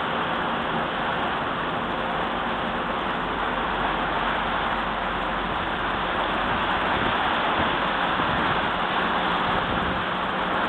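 Tugboat running its engines close by, a steady rushing noise with a faint low hum, as its propellers churn the water.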